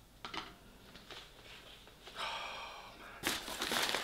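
Paper takeaway bags handled with a few light clicks, a long breath about two seconds in, then loud paper rustling near the end.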